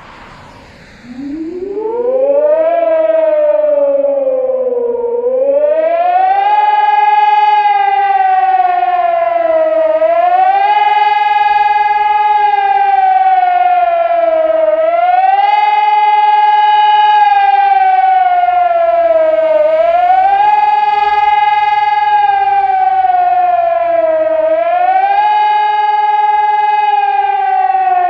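HELIN HES 1800 electronic civil-defence siren starting up about a second in and sounding the German public warning signal for a monthly test alarm. Its wailing tone rises, holds and falls roughly every five seconds, echoing strongly off the surrounding tall buildings and warehouses.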